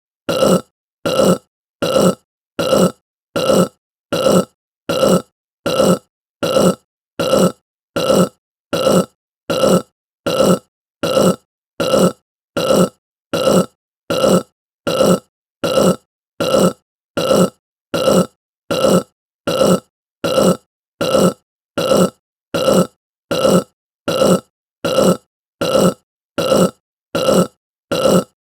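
Short human burps repeated over and over at a very even pace, a little under two a second, each one brief with a gap of silence between.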